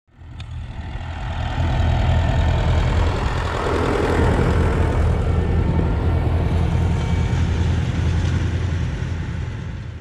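Farm tractor engine running steadily with a low rumble, fading in at the start and fading out near the end.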